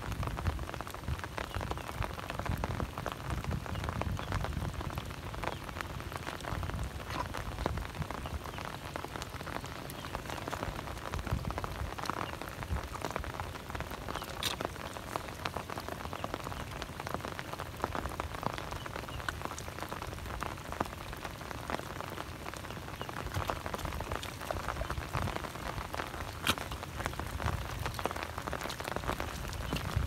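Steady rain falling on a flooded, muddy rice field, a dense patter of small drops with an occasional sharper tick.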